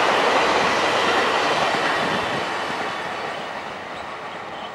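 Passenger train running on the rails, its wheel and track noise fading steadily as it moves away.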